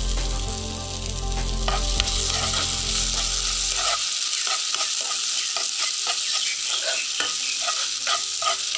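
Sago pearls (sabudana) sizzling as they fry in ghee in a nonstick pan, stirred with a spatula in quick repeated scraping strokes that come thicker from about halfway.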